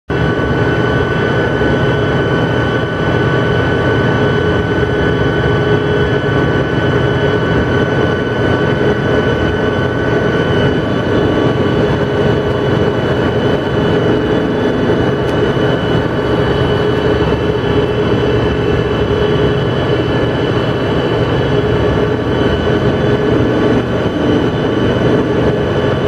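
Machinery of a DeLaval rotary milking carousel running: a steady mechanical drone with a few held humming tones over it, unchanging throughout.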